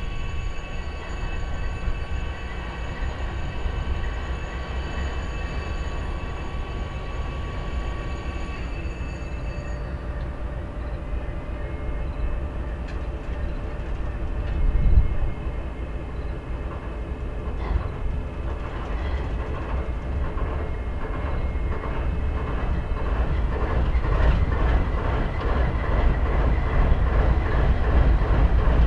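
GE ES44AC diesel locomotives idling: a steady low rumble with several steady tones, some of which drop out around a third of the way in. From a little past the middle, the rhythmic clatter of a moving train's wheels builds and grows louder toward the end.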